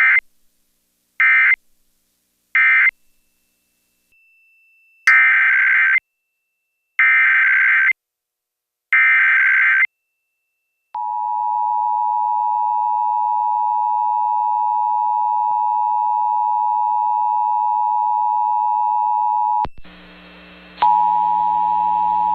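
Emergency Alert System test signals: three short bursts of warbling digital data (the end-of-message code), then three longer data bursts of the SAME header, followed by the two-tone attention signal held steady for about nine seconds. Near the end the sound switches to a humming background, and another attention tone sounds briefly.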